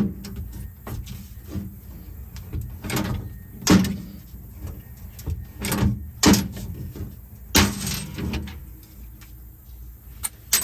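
Hand riveter setting pop rivets into galvanized sheet steel: a series of sharp, irregular metallic clacks and snaps, about eight in all, some with a brief low ring.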